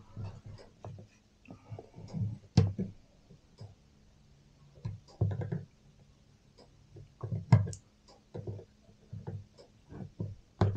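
Wire and a hand-made clamp tool being handled while a wire hose clamp is formed on a hose: scattered metal clicks and brief scraping, with two sharper clicks, one a few seconds in and one past the middle.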